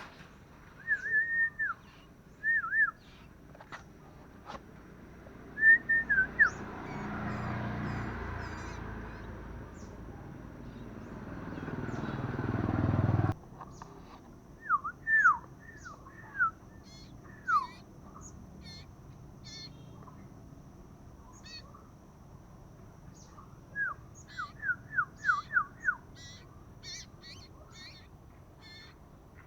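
Young common iora calling: short, sharp down-slurred notes in quick runs of two to six, with fainter high chirps between. A low rushing noise swells over several seconds and cuts off suddenly about halfway through.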